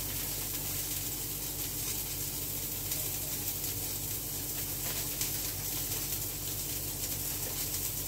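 Steady hiss with a low electrical hum from running kitchen appliances, with a few faint clicks of handling at the counter.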